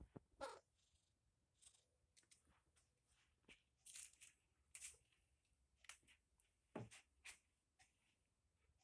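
Near silence broken by faint, scattered soft rustles and clicks, about eight in all.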